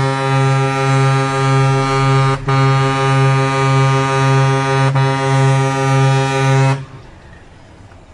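A truck's air horn blaring in one steady, held tone, broken twice for a moment and cutting off about seven seconds in, leaving a quieter vehicle running noise.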